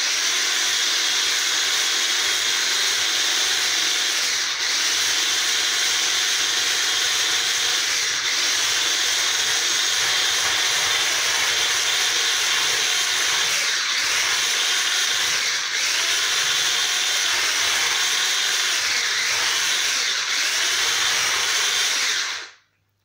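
Electric hand mixer with wire whisk beaters running steadily at speed, whisking a batter in a plastic bowl; it switches off suddenly near the end.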